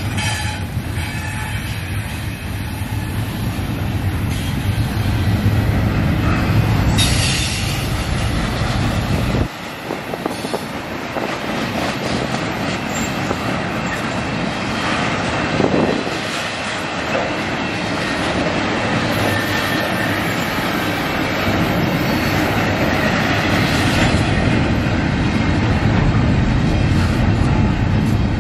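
Double-stack intermodal well cars of a freight train rolling past, making a steady loud rumble and rattle of steel wheels on the rails. About nine and a half seconds in, the low rumble briefly drops, then builds again.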